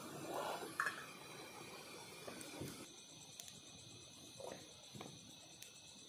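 A portable butane camping stove burner rushing faintly, fading out within the first couple of seconds. Then crickets chirp steadily at night, with a few soft knocks.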